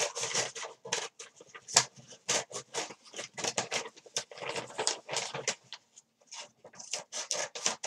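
Scissors cutting through a heavy double-layered brown paper grocery bag: a quick run of crisp snips, about three a second, with a short pause about six seconds in.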